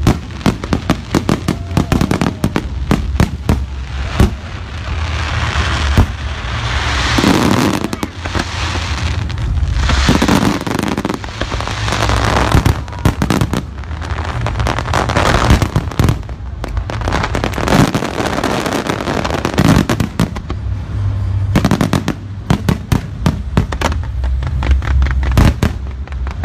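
Fireworks display going off in rapid volleys of bangs, mixed with dense crackling and hiss from bursting shells. The bangs come thickest near the start and again near the end.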